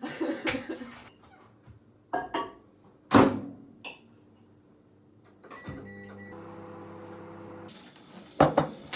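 Kitchen clatter of dishes and utensils being handled, with a sharp knock about three seconds in. Then a steady appliance hum runs for about two seconds, starting with a few short beeps.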